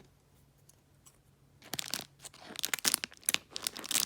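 Plastic packaging crinkling and crackling in irregular bursts as it is handled, starting about a second and a half in.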